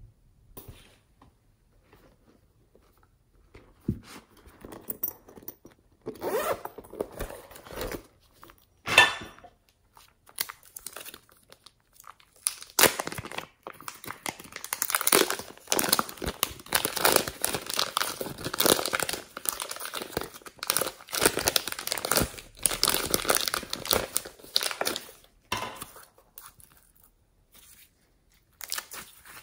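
Thin plastic pouch holding slime crinkling and rustling as hands squeeze, open and tear at it, in dense irregular crackles through the middle of the stretch. There is one sharp, louder crackle about nine seconds in.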